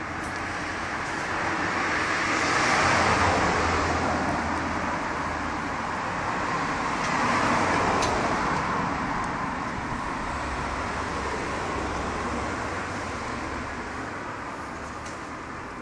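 Road traffic passing close by, with two vehicles swelling past about three and seven seconds in over a steady low hum.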